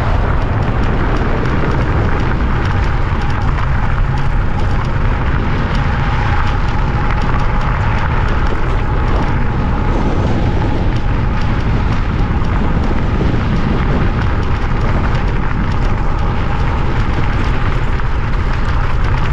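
Steady, loud wind rush and buffeting on the microphone of a moving e-bike, with a deep rumble underneath.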